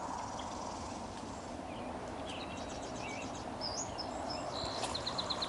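Wild songbirds chirping and calling: short high chirps and sliding notes, then a quick trill of about ten rapid notes near the end, over a steady outdoor hiss.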